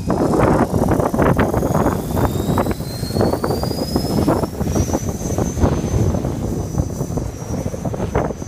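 Electric RC helicopter (Logo 480xx, Scorpion motor) whining in flight, the whine slowly rising in pitch, under heavy gusting wind noise on the microphone.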